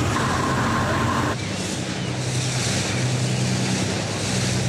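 A fishing boat's engine running steadily under heavy wind and sea noise, with a faint steady whine for the first second or so before the sound shifts.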